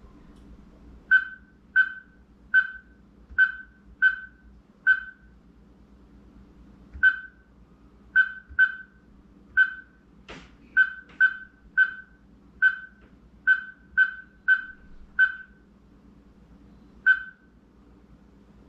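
CIEPOJIT smart lock's electronic keypad beeping once per key press as codes are entered during programming: about nineteen short beeps of one pitch, coming singly and in quick runs at irregular intervals, with a single click about ten seconds in.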